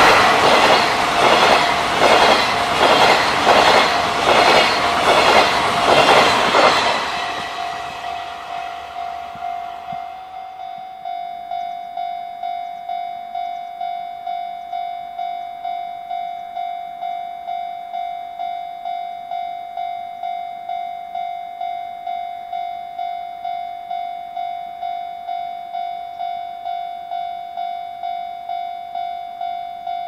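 Rail-laden freight flat wagons rattling past with a rhythmic clickety-clack over the rail joints, fading out about seven seconds in. Then a level-crossing warning bell rings steadily, about two dings a second, with the crossing still closed for the next train.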